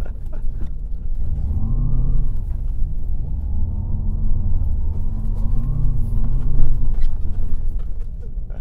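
GMC Hummer EV electric pickup driving over rough ice and snow, heard from inside the cab. A loud, steady low rumble runs throughout, with a hum that rises and falls in pitch several times.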